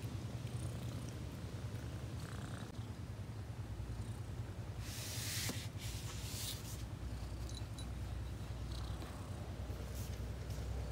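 Domestic cat purring, a steady low rumble, with a brief rustle about five seconds in.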